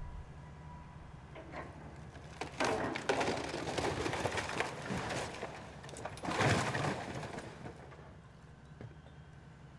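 An excavator bucket knocks down a brick wall, sending bricks and timber crashing and clattering to the ground for several seconds, loudest about six and a half seconds in. The excavator's engine runs low and steady underneath.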